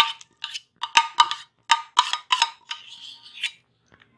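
A metal spoon scraping and knocking against a metal saucepan, working thick strawberry and flour paste out into a glass bowl of beaten eggs. It makes a quick run of sharp clinks and scrapes, about two a second.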